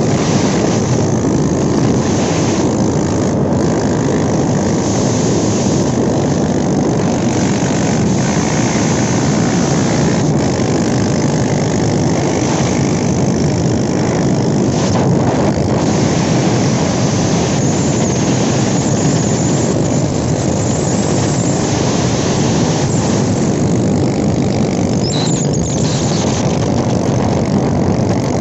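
Motorcycle engines running steadily at cruising speed on the move, with wind rushing over the microphone.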